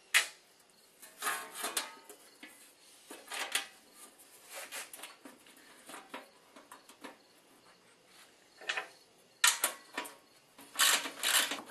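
Scattered metallic clinks and rattles of a snowblower's steel skid plate and its small bolts being handled and started by hand, in short bursts with quiet gaps; the busiest stretch comes near the end.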